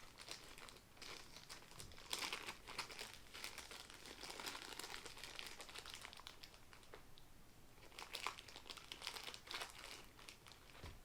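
Packaging crinkling and rustling in irregular bursts as the light's accessories and mounts are taken out of their box.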